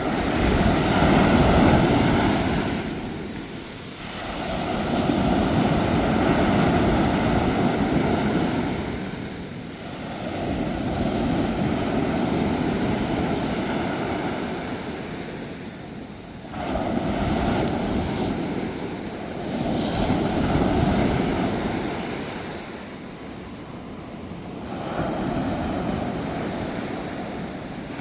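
Ocean waves breaking on a shore, a rushing surf that swells and recedes about six times, one wave every four to five seconds.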